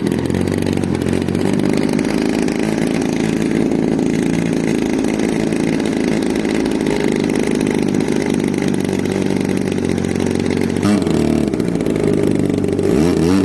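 Engine of a large-scale RC aerobatic plane, freshly hand-started, idling steadily with the propeller turning. About 11 seconds in, the throttle is blipped so the pitch rises and falls, and it is blipped again near the end.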